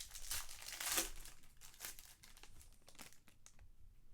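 Trading card pack wrappers crinkling and tearing as packs are opened and the cards handled, loudest in the first second, then fainter rustling.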